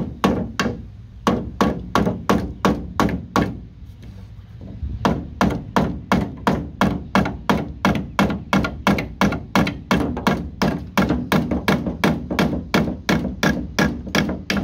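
Steel hammer striking a nail in a pine 2x4 again and again, driving it back through the board to knock it out. About three or four blows a second, with a short pause around four seconds in before the pounding resumes.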